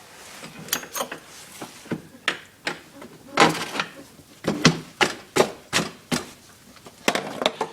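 Irregular metal knocks as the swingarm pivot bolt of a Honda TRX450R ATV is tapped back through the frame and swingarm, a dozen or more strikes, loudest in the middle.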